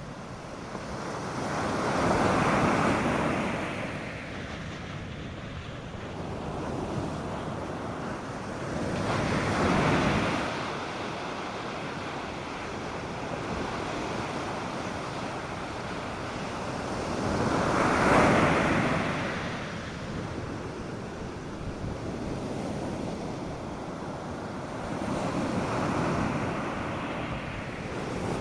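North Sea surf breaking on a sandy beach: four waves swell and fade, about eight seconds apart, over a steady wash of water.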